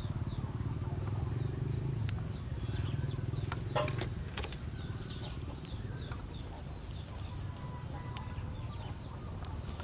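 Outdoor yard ambience: chickens clucking and small birds chirping in short, repeated falling notes, over a steady low rumble.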